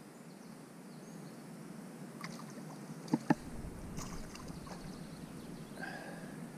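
Gentle water movement around a small craft on a lake, with two sharp clicks in quick succession about three seconds in from fishing tackle being handled.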